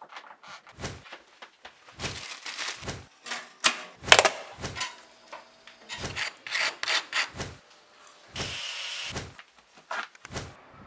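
A string of sharp clicks, knocks and clatters from hands handling kitchen appliances and objects, the loudest knock about four seconds in. A short steady rushing noise follows about eight seconds in.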